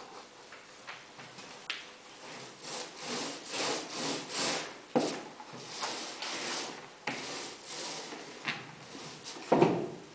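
Paintbrush bristles brushing epoxy across a plywood panel, several strokes in a row. Sharp knocks about five and seven seconds in, and a louder knock near the end.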